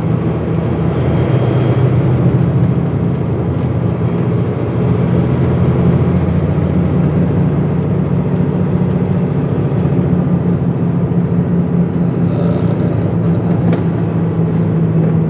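Crane truck's engine and road noise heard inside the cab while driving: a steady low drone.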